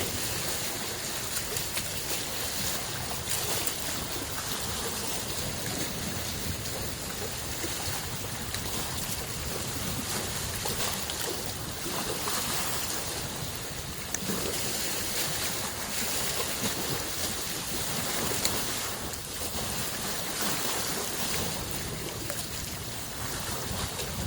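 Small freshwater lake waves lapping at the shore: a steady wash with many small splashes and gentle swells in level.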